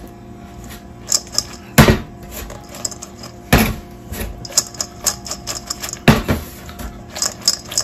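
Crinkle-cut fries being tossed and shaken in a stainless steel mixing bowl: a scattered clatter of light clicks against the metal, with sharper knocks about two, three and a half, and six seconds in.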